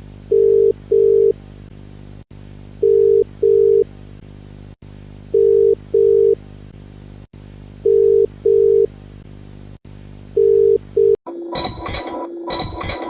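Emergency alert alarm tone: pairs of short, steady low beeps repeating about every two and a half seconds over a steady hum. About eleven seconds in it cuts to a different, louder alarm, a held tone with repeated high, bright strikes.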